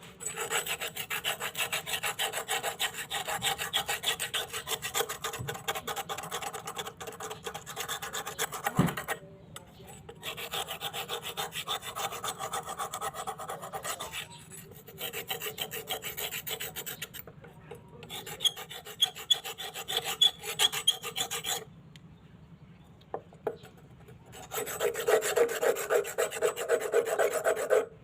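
Rapid back-and-forth abrasive scraping on a rusty old knife blade, rubbing the rust off. It comes in several runs of strokes with short pauses between them.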